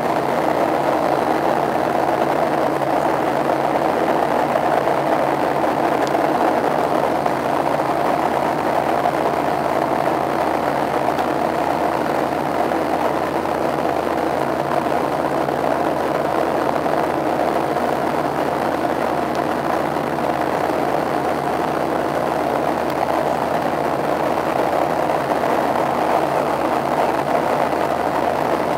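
Steady cabin noise of a Boeing 737-700 in flight, heard from a window seat over the wing: the even drone of its CFM56-7 turbofan engines and rushing airflow, unchanging throughout.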